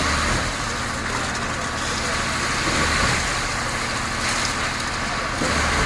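An engine running steadily, a low hum under a broad wash of noise.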